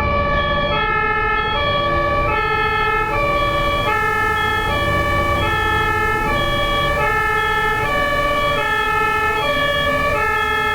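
German ambulance's two-tone siren (Martinshorn) sounding steadily, alternating between a high and a low note about every two-thirds of a second, over a low rumble of traffic.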